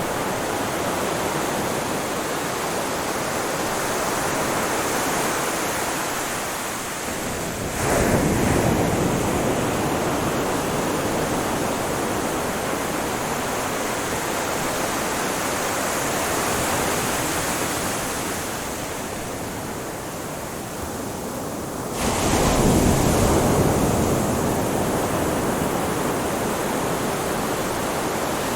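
Ocean waves washing onto a shore in a steady rush of surf, with two larger waves breaking suddenly, about eight seconds in and again about twenty-two seconds in, each fading away slowly.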